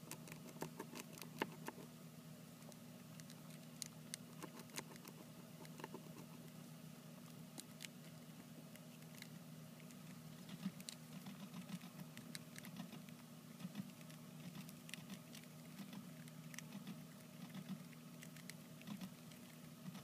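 Campbell's dwarf hamsters nibbling seeds from a millet spray and moving over paper bedding: faint, irregular small clicks and crackles, over a low steady hum.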